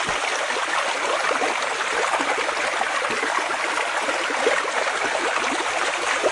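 Steady rushing of a river running over rapids.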